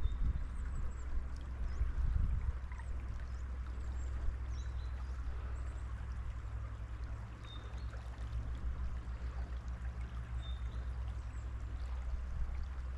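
Seasonal snowmelt stream running and gurgling steadily, over a low rumble. A few faint high chirps sound above it.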